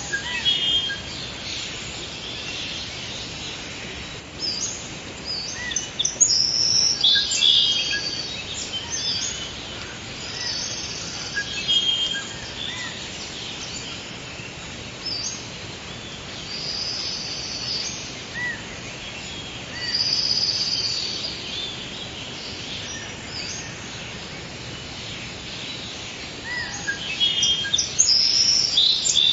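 Forest ambience: several birds chirping and trilling in short high phrases over a steady background hiss, with the busiest calling about a quarter of the way in and again near the end.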